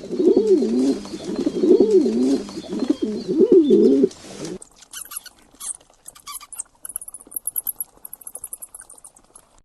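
A pigeon cooing in three low, wavering phrases. About four and a half seconds in, it gives way abruptly to a small bird chirping rapidly in thin, very high notes.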